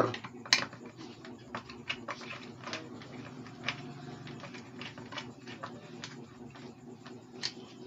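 Scattered small clicks and taps as a wire is fastened into the screw terminals of a magnetic contactor with a screwdriver.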